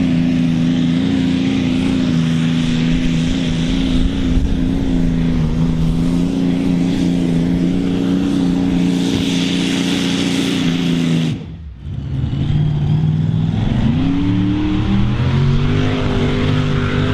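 V8 engine of a mini modified pulling tractor running flat out under load at a steady high pitch. About eleven and a half seconds in, the sound breaks off sharply. Then a second mini modified's V8 climbs in pitch as it revs up and pulls.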